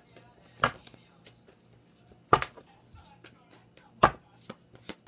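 Tarot cards slapped down onto a tabletop, three sharp knocks about a second and a half apart with faint card clicks between.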